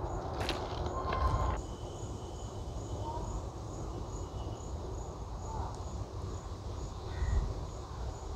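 Outdoor ambience: an insect chirping in a steady high-pitched pulse, about three times a second, over a low rumble.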